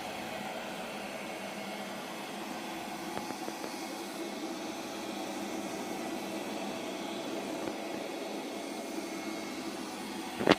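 Light 'N' Easy robot vacuum cleaner running with a steady whir. A single sharp knock comes near the end.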